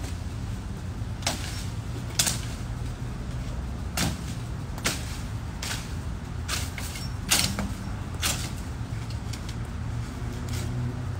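Machete hacking at overgrown bush branches and vines: about a dozen sharp chops and cracks at irregular intervals, roughly one a second, over a low steady rumble.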